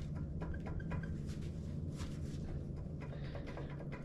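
Faint light clicks and taps of metal parts being handled, over a steady low hum.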